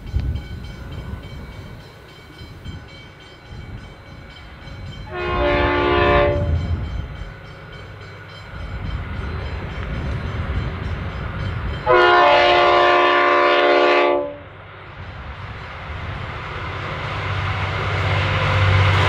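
V/Line N class EMD-powered diesel locomotive sounding two blasts on its multi-tone horn, the second longer, as it approaches. Between and after the blasts its two-stroke diesel engine is heard working up the 1-in-50 grade, the low engine drone growing louder near the end as the train draws close.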